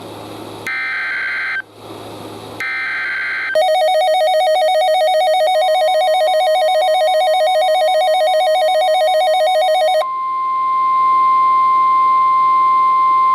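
NOAA Weather Radio SAME header: two raspy digital data bursts about a second long, a second apart. Then a loud, rapidly pulsing alert tone sounds for about six seconds over the start of the weather radio warning alarm tone, a steady single high tone that continues alone once the pulsing stops.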